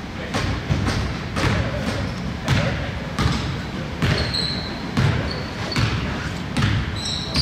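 Basketball dribbled on a hardwood gym floor: a steady run of bounces, about two a second, echoing in the hall. A few short high squeaks of sneakers on the floor come in the second half.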